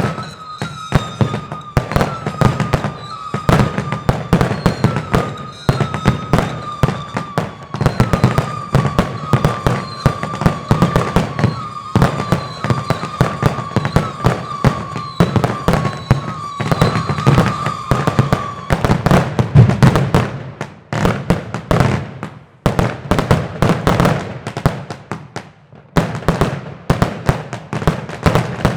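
New Year's Eve fireworks: a dense, continuous barrage of firecracker cracks and rocket bangs over a low rumble. A steady high whistling tone, sinking slightly in pitch, runs under the bangs and stops about two-thirds of the way through.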